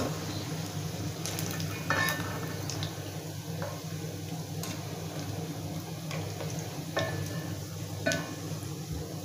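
Marinated chicken pieces frying in hot oil in a metal kadai with a light, steady sizzle, over a steady low hum. A slotted metal ladle clinks and scrapes against the pan a few times as the crisp pieces are lifted out.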